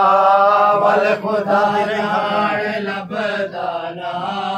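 A man's voice chanting a Saraiki noha, a mourning lament, in long drawn-out notes. The held note breaks off about a second in, and the line goes on with bending pitch.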